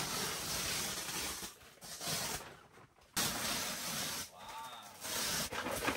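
Synthetic sleeping bags rustling and flapping as they are shaken out and spread, in bursts of about a second with short pauses between.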